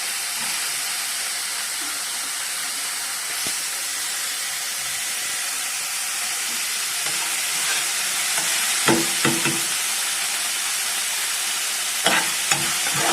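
Chopped onions and ginger garlic paste sizzling steadily in hot coconut oil in a pan. They are stirred in a few short scraping strokes about nine seconds in and again near the end.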